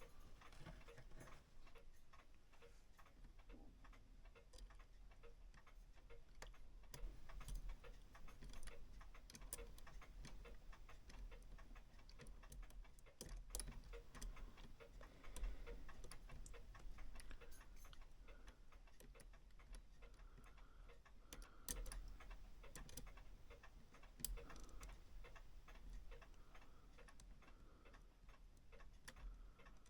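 Faint ticking of clocks, with a few sharper light clicks scattered among the ticks.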